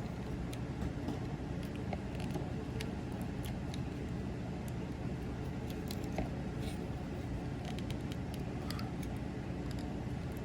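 Small plastic clicks and taps from the parts of a Transformers MPM Ratchet figure being moved and snapped into place during its transformation, scattered irregularly over a steady low background hum.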